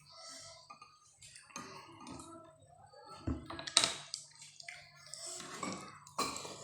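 Spoon clinking against a bowl of bakso while eating, a few sharp knocks, the loudest a little under four seconds in.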